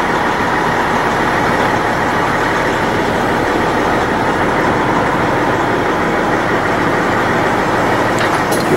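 Semi truck's diesel engine running steadily at low speed while the truck backs up slowly.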